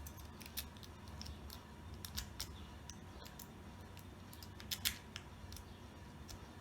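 Homemade metal-strapping rake working in the keyway of an American Lock 1100 padlock under light tension: irregular light metallic clicks and scrapes as the rake runs over the pins, with a louder pair of clicks about five seconds in.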